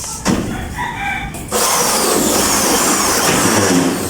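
Power drill running for about two and a half seconds, starting about a second and a half in, its motor whine wavering with trigger speed, then winding down at the end.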